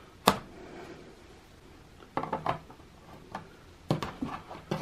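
Small metallic clicks and clinks of the retaining nuts on a model railway controller's knob spindles being loosened and handled. There is one sharp click shortly after the start, the loudest sound, then scattered light clinks from about two seconds in.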